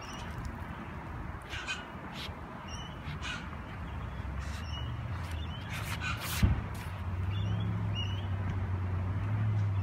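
Birds calling in short, scattered calls, with a single thump of a tennis ball struck about two-thirds of the way through. A low steady engine hum comes up near the end.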